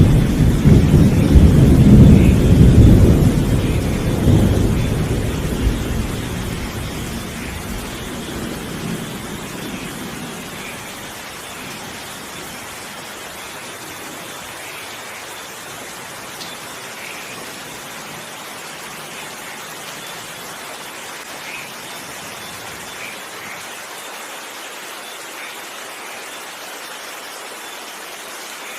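Thunder rolling in a rainstorm: a loud low rumble at the start that dies away over about ten seconds, leaving steady rain falling.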